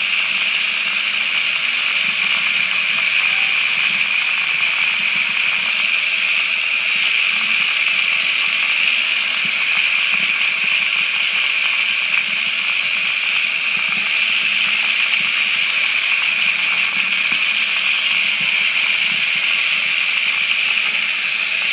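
Water running steadily down a small plastic pocket sluice and pouring into a plastic bucket below, a constant even hiss of flowing water as pay dirt is washed through the riffles.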